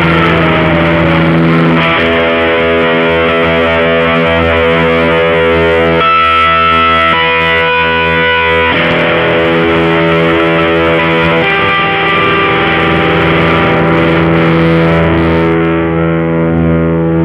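Electric guitar played through a JOYO Deluxe Crunch overdrive pedal: distorted, sustained chords and notes ringing out, changing every few seconds.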